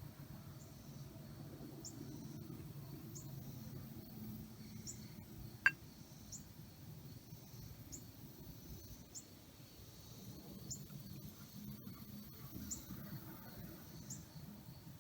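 Faint, short, high-pitched chirps repeating irregularly about once a second over low room noise, with one sharp click near the middle.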